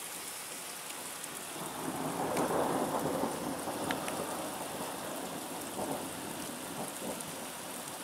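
Rain falling steadily on a road and hedges, with scattered drop taps. A rumble of thunder swells about two seconds in and fades by about four seconds.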